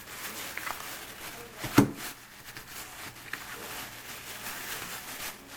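Grocery packages being handled: a steady rustle with a few small clicks and one sharp knock just under two seconds in, as a pack of ground lamb is set down and the next item is picked up.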